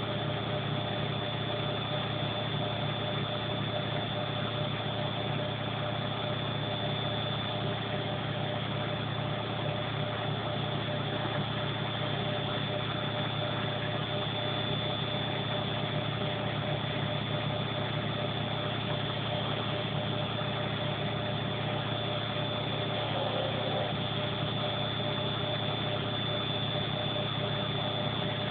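Front-loading washing machine drum in its final spin, holding a steady speed of about 900 rpm. It makes an even motor hum with a constant thin high whine.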